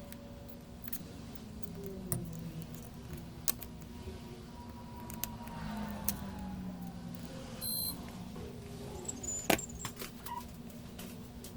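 Small metal repair tools clicking and tapping on a workbench over a steady low hum, with a short high electronic beep about eight seconds in.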